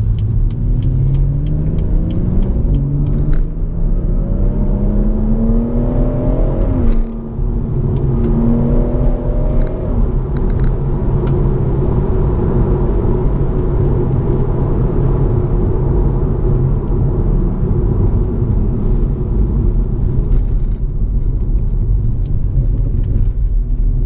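BMW M140i's turbocharged 3.0-litre straight-six with an M Performance exhaust, heard from inside the closed cabin while driving at low revs in comfort mode. The engine note rises for about seven seconds, breaks briefly at a gear change, rises again, then settles into a steady low cruising note over road rumble.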